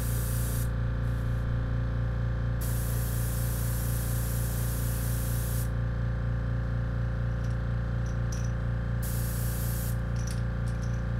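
Badger airbrush spraying paint in three bursts of hiss, the longest about three seconds, over a steady low hum.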